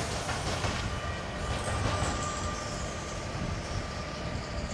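METRANS class 386 electric locomotive running light through a rail yard: a steady rumble of wheels on rails, with a high whine that slides slowly down in pitch from about a second and a half in.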